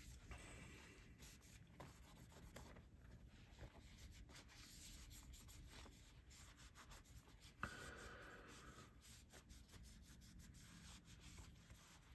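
Faint rubbing as a titanium folding knife is wiped down by hand, with a small click about seven and a half seconds in.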